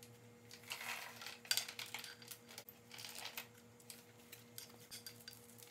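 Loose motorcycle roller drive chain clinking and rattling as it is pulled link by link off the sprocket and through the frame: faint irregular metal clicks, a few sharper ones about one and a half seconds in.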